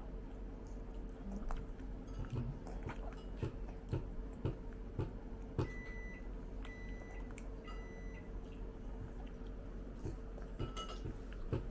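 Eating sounds: scattered small clicks and taps of utensils on tableware with chewing, over a steady faint hum. About two-thirds of the way through, an electronic appliance beeps three times, each beep about half a second long.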